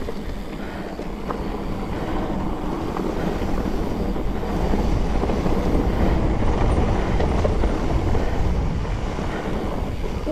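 Mountain bike riding down a dirt trail: tyres rumbling over the ground and wind buffeting the microphone, growing louder about halfway through.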